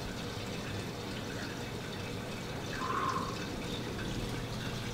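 Steady background room noise with a low hum. A brief soft mid-pitched sound rises above it about three seconds in.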